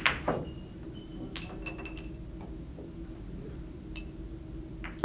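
Billiard balls clicking: a sharp knock of cue and ball at the start, then a few lighter ball-on-ball clicks with a brief ring about a second and a half in and again near four seconds, over a steady low hum.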